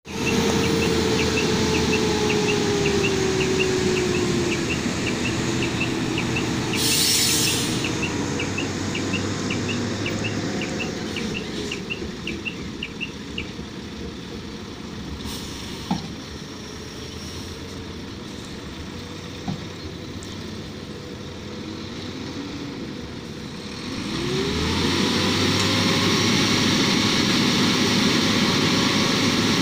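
Diesel engines of heavy tipper dump trucks running, their pitch sliding down and up as they are revved, with a reversing alarm beeping about twice a second through the first half. A short hiss comes about seven seconds in, and near the end one engine revs up strongly.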